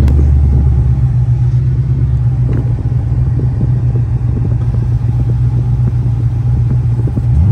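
Cammed Shelby GT500's supercharged V8 idling with a steady, rumbling exhaust note and an uneven, choppy beat.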